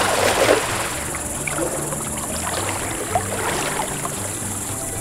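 A lead-weighted cast net (atarraya) splashes down on the river surface, a burst of splashing in the first half second. A low steady hum runs underneath.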